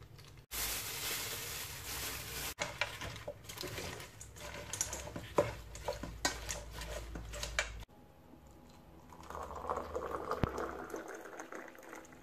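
Salad leaves and croutons tossed by hand in a stainless steel mixing bowl: rustling with many small clicks against the metal. Near the end, water is poured into a glass.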